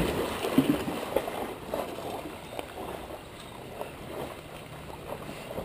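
Pool water splashing and sloshing as dogs swim through it, loudest at the start and settling down as the churn eases.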